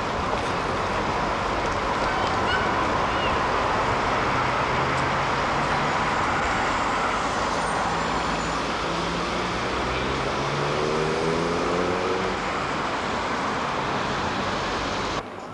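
Town-centre street traffic: a steady noise of passing cars, with one vehicle's engine rising in pitch as it accelerates about ten seconds in. The sound drops away briefly near the end.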